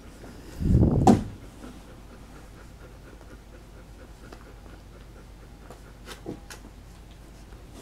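Nursing mother dog panting, with a loud, low, muffled burst of sound about a second in.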